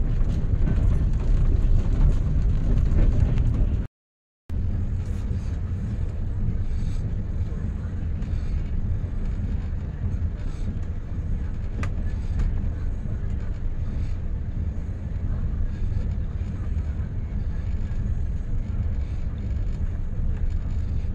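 Passenger train running, heard from inside the coach: a steady low rumble of wheels on the rails. The sound cuts out completely for about half a second around four seconds in, then the rumble resumes slightly quieter.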